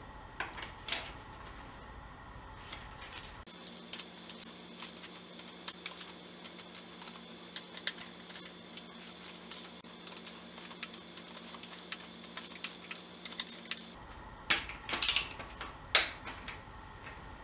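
Socket ratchet clicking in short strokes as intake manifold bolts are driven down, a couple of clicks a second with a few louder knocks of the tool. A faint steady hum joins for most of the middle stretch.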